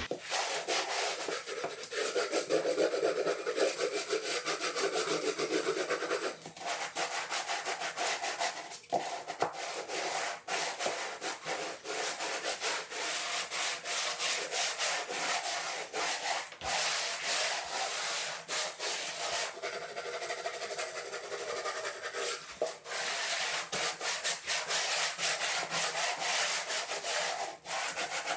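Wooden float rubbed back and forth over Mapei Mapeguard UM uncoupling membrane to press it into the wet thinset mortar beneath: a steady scraping swish of quick repeated strokes, with a few short breaks between passes.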